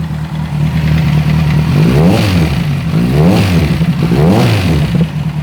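Kawasaki Z1000 inline-four engine idling, then the throttle is blipped three times, each rev rising and falling back to idle. It still has an engine noise that has not stopped after the ignition timing was corrected, which the mechanic takes for damaged internal parts needing the engine to be opened up.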